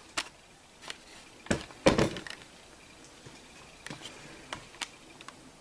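A few scattered knocks and clicks of objects being handled, with two heavier thuds close together about two seconds in and light ticks later.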